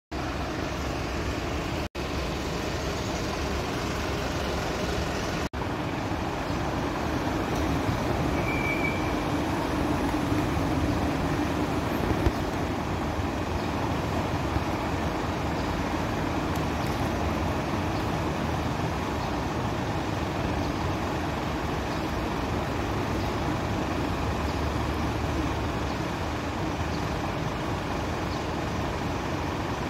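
A fire engine's diesel engine running steadily, with street traffic noise around it. A short high tone sounds about nine seconds in.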